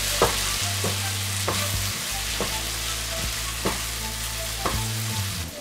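Prawns and onion-tomato masala sizzling in hot oil in a frying pan while a wooden spatula stirs them, scraping and knocking against the pan about five times.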